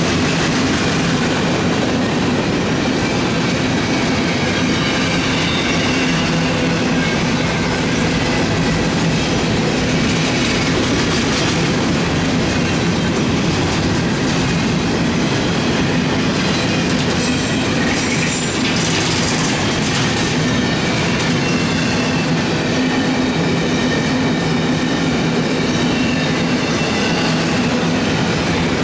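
Double-stack intermodal well cars of a CSX freight train rolling past close by: a steady rumble and clatter of steel wheels on the rails, with faint high wheel squeals coming and going. About 18 seconds in, a brief high burst of noise rises over it.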